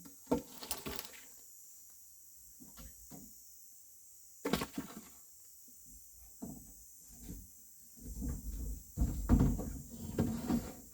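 Firewood being handled and dropped onto a pile: irregular wooden knocks and thuds, a few scattered ones and then a denser, louder clatter near the end.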